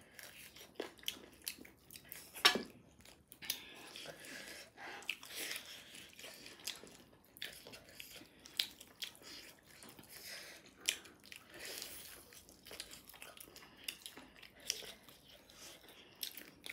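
People chewing and biting through chicken wings and noodles: crunchy bites and many short mouth clicks, with one sharper crack about two and a half seconds in.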